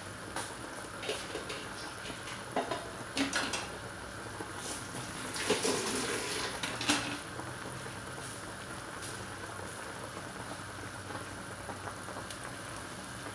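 Pot of chicken tinola broth at a steady, bubbling boil, with a few sharp clicks early on and a louder noisy burst of clatter about midway.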